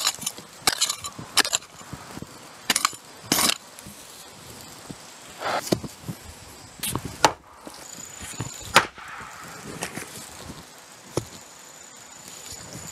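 A long-handled hand digging tool striking and scraping into hard-packed earth, ten or so irregular strokes: some sharp knocks, some short gritty scrapes as soil is loosened.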